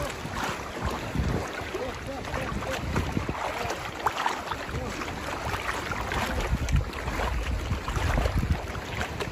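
Wind buffeting the microphone in uneven gusts, with scattered small clicks and knocks over a steady rushing noise.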